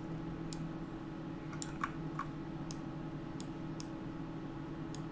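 Computer mouse and keyboard clicks: about eight sharp, irregularly spaced clicks as buttons, the scroll wheel and the Shift key are pressed, over a faint steady low hum.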